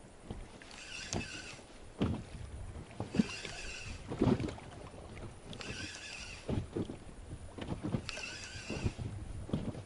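Water splashing and sloshing in shallow water, in repeated strokes about once a second.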